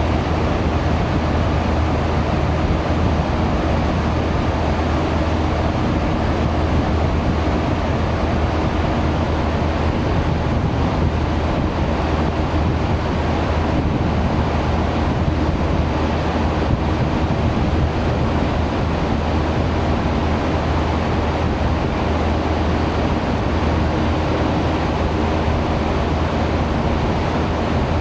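Steady low ship engine drone with rushing water and wind buffeting the microphone, unchanging throughout.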